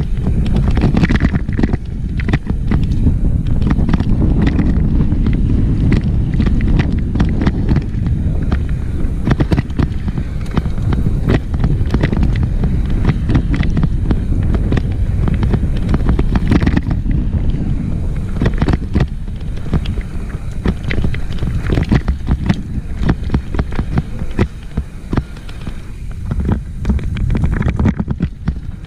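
Mountain bike descending a rough downhill trail: wind rushing over the microphone and a constant clatter of sharp knocks as the bike rattles over exposed rocks.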